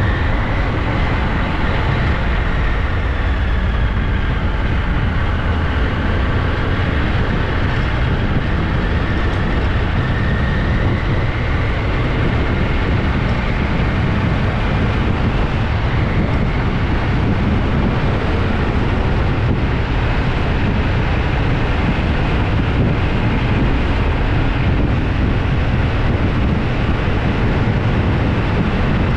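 Steady, loud rumble of a vehicle in motion, with a faint high whine that wavers in pitch.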